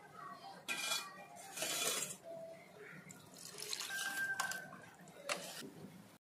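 A steel spoon stirring and scraping in a stainless steel bowl of curd, in several short strokes, with a brief metallic ring about four seconds in.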